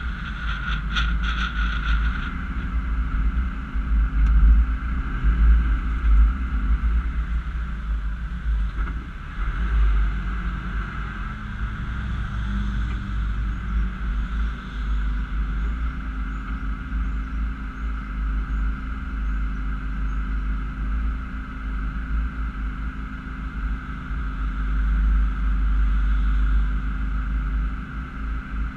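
Steady low rumble of a 2010 Honda CR-V, picked up by a camera on its bonnet: engine and wind noise on the microphone. A brighter hiss at the start fades out about two seconds in.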